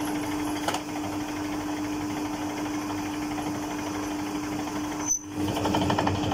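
A belt-driven noodle dough roller machine running with a steady hum, with one click about a second in. Near the end the sound briefly cuts out, and then a fast, even rattle comes in.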